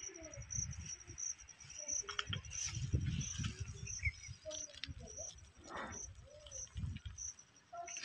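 Soil and dry grass rustled and scraped by hand into a small grave hole, with a few small clicks. An insect chirps steadily in the background, a high pulse about twice a second.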